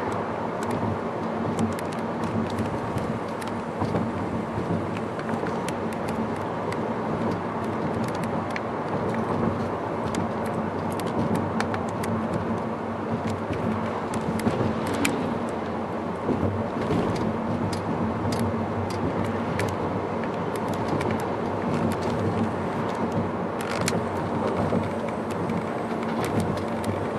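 A car driving along, heard from inside the cabin: steady road and engine noise with a steady low hum, broken by scattered light clicks and rattles.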